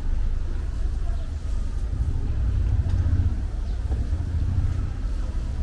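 A steady low rumble of outdoor street or harbour ambience, with faint voices in the background.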